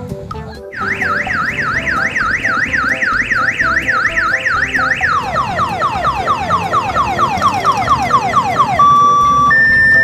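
Loud electronic siren from an odong-odong tourist train's roof loudspeaker. It starts as a fast rising-and-falling yelp, about four cycles a second, and about five seconds in switches to a quicker run of falling sweeps. Near the end it changes to a two-note hi-lo tone.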